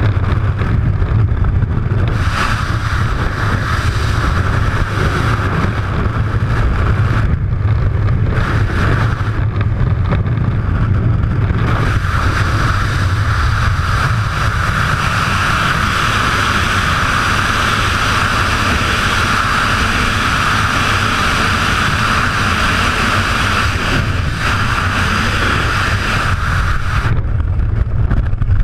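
Freefall wind rushing over a skydiver's helmet camera: a loud, steady buffeting rush whose hiss comes and goes abruptly as the body turns in the airflow. Near the end the hiss falls away as the parachute opens.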